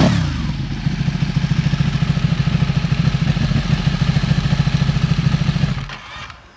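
Ducati 1299 Panigale's Superquadro V-twin breathing through an Arrow aftermarket exhaust. A throttle blip right at the start rises and falls back to a steady, pulsing idle, which cuts off near the end.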